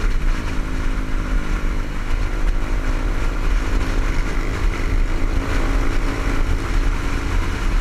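Motorcycle engine running steadily at cruising speed, heard from a helmet-mounted camera, with heavy wind rumble on the microphone.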